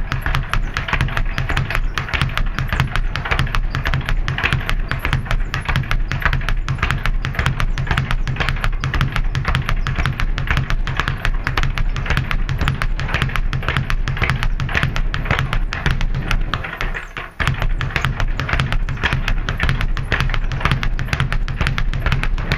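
Leather speed bag being punched in a fast, continuous drumming rhythm, rebounding against a wooden platform with dense hits and low thuds. It breaks off briefly about three-quarters through, then starts again.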